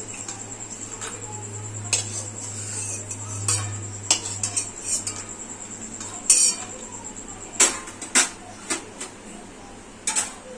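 Metal spatula scraping and clinking against a metal kadai as fried bori (lentil dumplings) are scooped out of the oil, in irregular sharp knocks a half second to a second and a half apart. A steady low hum runs underneath.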